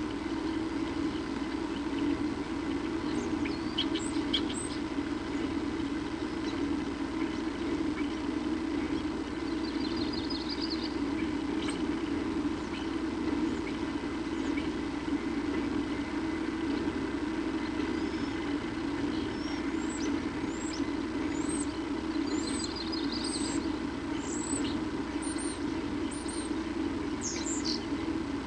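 Steady low background rumble with small birds chirping over it: scattered quick high calls, a couple of short fast trills, and a busier run of chirps in the last several seconds.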